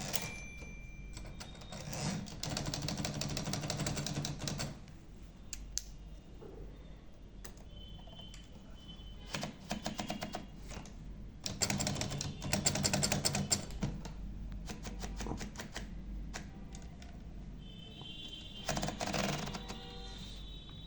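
Olivetti Lettera 32 manual portable typewriter being typed on: rapid runs of keystrokes in bursts of a few seconds, with pauses and scattered single strokes between.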